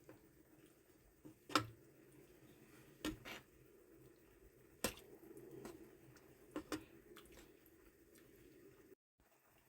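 Faint kitchen cooking sounds: a few soft knocks and clicks, the loudest about one and a half seconds in, over a low steady hum.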